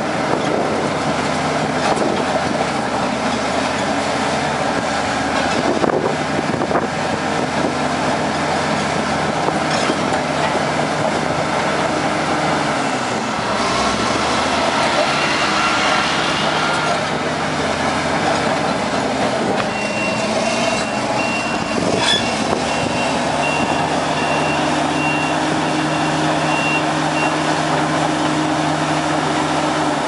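Komatsu D61PX crawler dozer's diesel engine running steadily. A reversing alarm beeps in quick repeated pips, briefly midway and again for several seconds later on.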